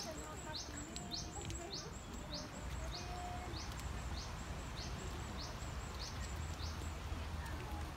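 A small bird calling a short rising chirp over and over at an even pace, just under two a second, over a steady low outdoor rumble.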